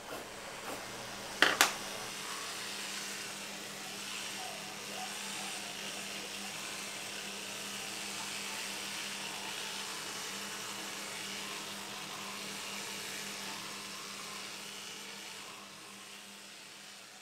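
Two sharp clicks about a second and a half in, then an electric toothbrush buzzing steadily against the teeth during brushing, easing off near the end.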